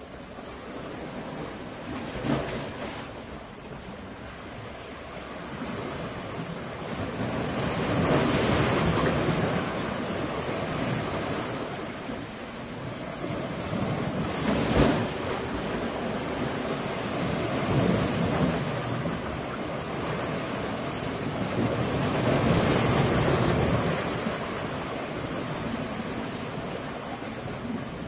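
Ocean waves crashing: a rush of surf that swells and fades in long surges several seconds apart, with a sharper crash about halfway through.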